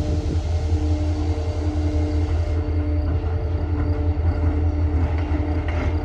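Norfolk Southern diesel-electric locomotive approaching: a steady low engine rumble with faint engine tones that come and go. There is light clattering near the end.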